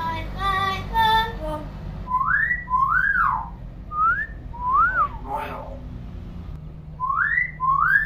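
Common hill myna whistling: pairs of clear whistles, one rising and one rising and then falling, repeated three times, after a short voice-like call in the first second and a half.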